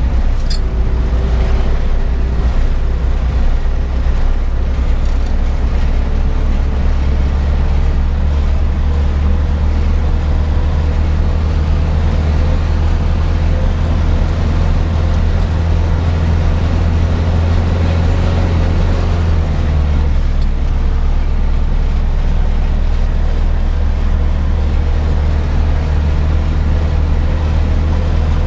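Zetor 7011 tractor's four-cylinder diesel engine running steadily under way, with its engine note shifting slightly lower about two-thirds of the way through.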